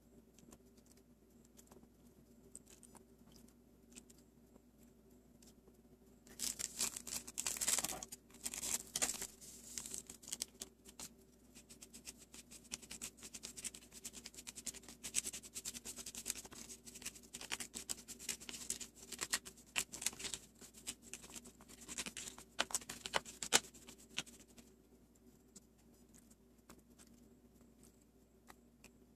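Crinkling and rustling of a small candy-powder packet being handled and shaken out, with dry powder pattering into a plastic tray, a dense crackly run starting about six seconds in and stopping a few seconds before the end. Light scattered clicks either side and a faint steady hum underneath.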